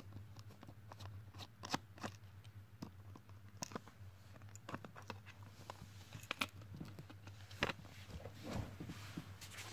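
Scattered small clicks and scrapes of a precision screwdriver backing out the tiny screws that hold a power bank's circuit board, and of the plastic case and board being handled, over a low steady hum.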